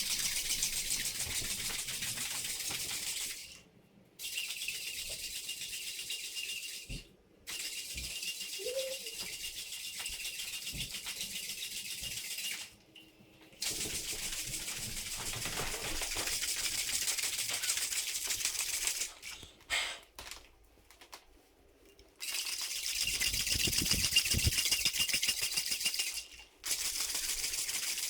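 A cocktail shaker being dry-shaken without ice, the liquid with egg white and cream sloshing rapidly inside. This comes in several long spells of fast shaking broken by short pauses. It is the dry shake that froths up the egg white and cream.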